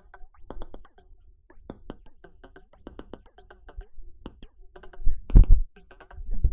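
Mouth pops, time-stretched, pitch-shifted and run through a phaser: a run of short, irregular pops and clicks, with a louder, deeper cluster of pops about five seconds in.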